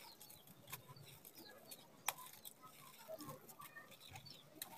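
Dry red dirt and crumbled sand-cement sprinkled and crumbled by hand onto a paved floor: a faint grainy trickle with scattered small gritty clicks, the sharpest about two seconds in.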